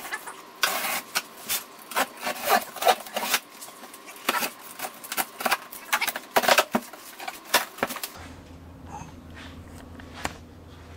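A cardboard shipping box being opened by hand: a quick run of sharp rips, scrapes and rustles from the tape, flaps and packing. It dies down after about eight seconds, leaving a faint low hum and one click.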